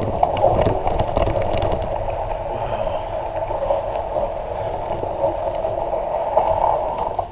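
Surly Long Haul Trucker's tyres rolling through fresh snow: a steady hiss with scattered small crackles.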